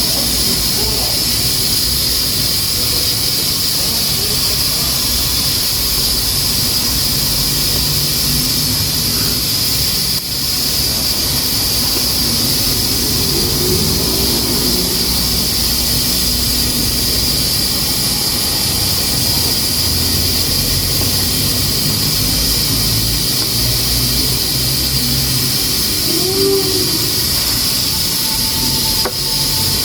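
Pressure cooker hissing steadily as steam escapes past its weight valve, a loud, even, high-pitched hiss that shows the cooker is up to pressure.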